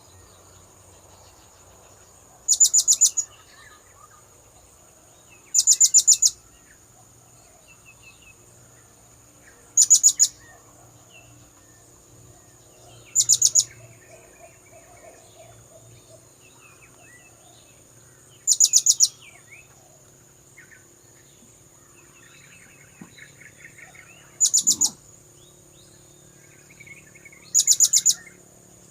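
Blue-crowned hanging parrot (serindit) calling: seven short bursts of rapid, shrill, very high-pitched notes, each about half a second long and spaced a few seconds apart. This is a lure call, the kind played to draw in wild serindits.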